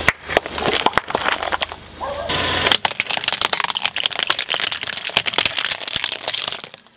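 Plastic yogurt cups and then plastic slime pots cracking and crunching under a car tyre as it rolls over them, a rapid run of sharp cracks and splits. A low steady hum lies under the first couple of seconds, and the cracking dies away near the end.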